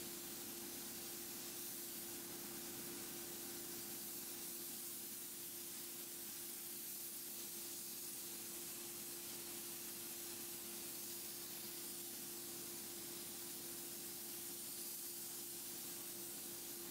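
Small soda blaster nozzle spraying baking soda with compressed air to strip a wood finish: a steady hiss, with a steady hum underneath.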